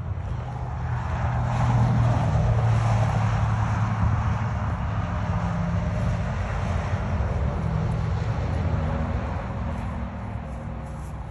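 Engine of a passing vehicle: a low, steady drone that swells over the first couple of seconds, holds, then slowly fades toward the end.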